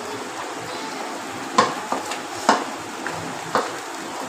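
Wooden spoon stirring thick, bubbling suji halwa in an aluminium pan, with a steady sizzling hiss and a few sharp clicks and knocks in the middle of the stretch. The halwa is spluttering hard as the sugar syrup cooks down.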